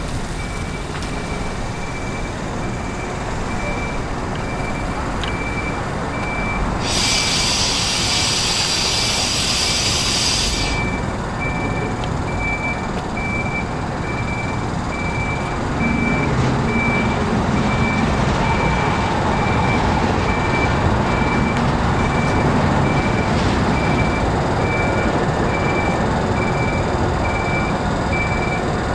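Railcar mover's warning alarm beeping steadily over its running engine, with a burst of hissing air lasting about four seconds, starting about seven seconds in.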